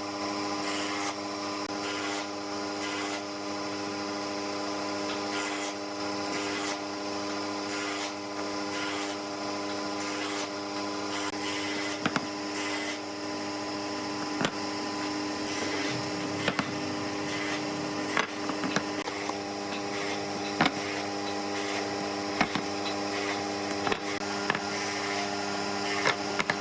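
A power tool running with a steady hum while it works wood. Rasping strokes come about once a second in the first half, and sharp knocks are scattered through the second half.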